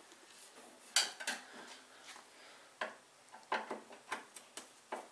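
A screwdriver working the screws out of a riding mower's sheet-metal panel: a string of sharp, irregular metal clicks and clinks, the loudest about a second in.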